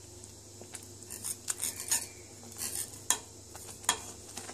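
A wire whisk stirring thick spinach béchamel in a stainless steel pan, its wires scraping and clicking against the pan in irregular strokes as cheese is worked in to melt.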